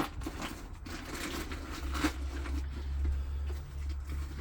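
Scattered rustling and handling noises, a few short sharp scrapes, over a steady low hum.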